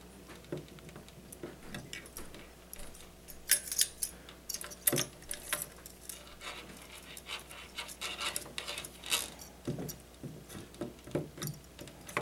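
Irregular clicks, taps and light scrapes of a stock AMD CPU cooler being handled and seated onto a motherboard's socket mounting bracket, its metal heatsink and latch clip knocking against the mount.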